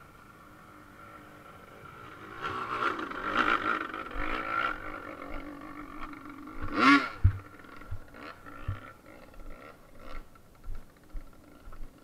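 Yamaha TT-R600's single-cylinder four-stroke engine running as the bike rides a rough, rocky dirt trail: quiet at first, the revs pick up a couple of seconds in and rise and fall, with a brief loud rev that falls away about halfway through. After that come irregular knocks and thumps as the bike bounces over stones and ruts.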